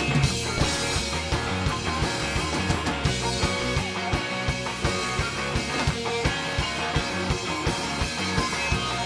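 Pop/rock band playing live: drum kit and guitars going at a steady beat.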